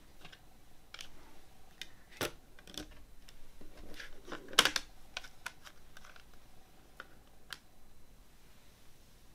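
Plastic CD jewel case handled and snapped shut: scattered small clicks and taps, the loudest cluster about halfway through.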